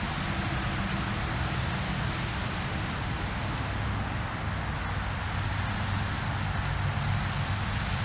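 Steady creek ambience: an even hiss of flowing water, with a constant high-pitched insect drone over it.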